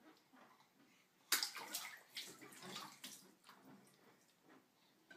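Water splashing, starting suddenly about a second in and going on in irregular splashes.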